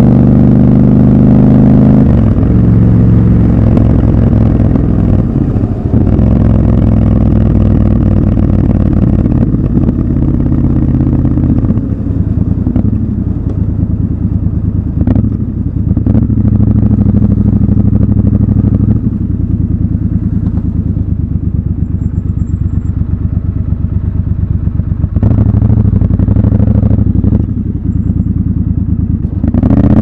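Triumph Scrambler 1200 XC's 1200 cc parallel-twin engine heard from the rider's seat in city traffic. It runs loudest at the start, then at lower revs through the middle as the bike slows behind cars, with the throttle opened again for a couple of seconds near the end.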